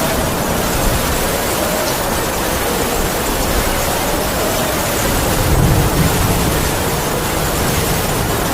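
Heavy rain falling steadily with wind howling over it, a faint wavering whistle that slowly sinks in pitch; a gust swells briefly about five and a half seconds in.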